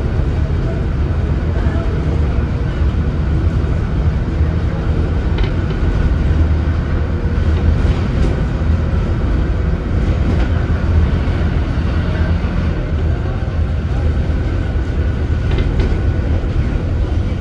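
Leyland Atlantean AN68/1R bus under way, its rear-mounted Leyland O.680 six-cylinder diesel engine running with a steady low rumble and road noise inside the bus, with a few light rattles.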